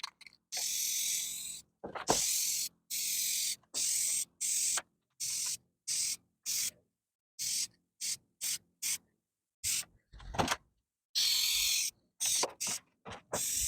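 Spray can of white paint hissing in many short bursts, each starting and stopping sharply and lasting from a fraction of a second to over a second: a second colour coat going on over primer in repeated passes.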